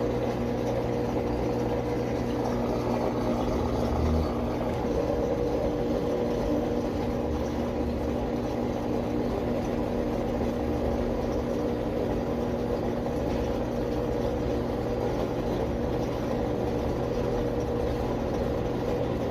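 Brastemp BWG10 washing machine running: a steady motor hum with a few held low tones, shifting slightly about four seconds in.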